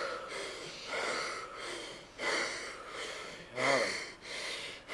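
A man breathing hard and fast in gasps, as in a panic attack, about one breath a second, the loudest with a short voiced gasp near the end.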